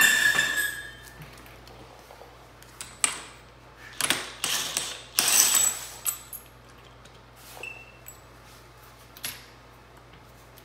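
A loud metal clank with ringing right at the start, then several short runs of a cordless drill turning a socket as it spins bolts out of the handlebar clamp on a Honda Grom, followed by a few lighter clicks of tools and parts.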